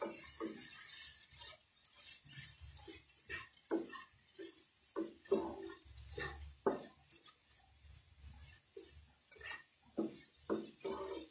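A spatula scraping and knocking against a nonstick frying pan while stirring frying tomato, onion and green chillies, in irregular short strokes.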